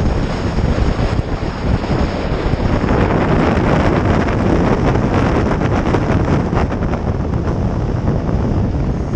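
Wind rushing over the microphone of a camera on a motorcycle riding at road speed, with the bike's running noise underneath; it gets a little stronger about three seconds in, then eases near the end.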